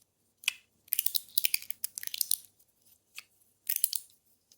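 A TIER I Guandan Mini Slider fidget being slid and flicked by hand, making clusters of sharp, high clicks and rattles, about half a dozen bursts with short pauses between.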